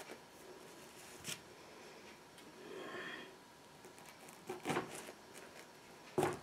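Quiet handling noise from working on a small pumpkin by hand, fitting a craft hat on a thin stick into it: a few light taps and clicks, the sharpest near the end.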